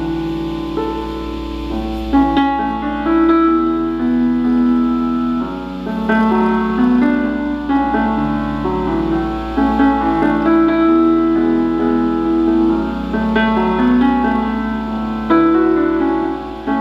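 Background piano music: a calm melody of sustained notes changing every half second or so.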